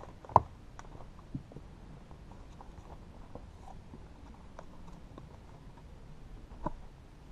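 A hiker's footsteps and shoe scuffs on bare rock while scrambling over boulders, with scattered small clicks, a sharp knock about half a second in and a softer knock near the end.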